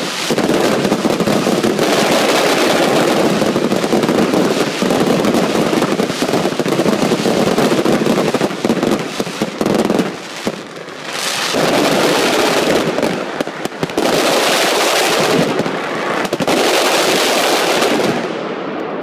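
Fireworks barrage: a dense, rapid run of bangs that breaks off briefly about ten seconds in, comes back in three more bursts, and dies away near the end.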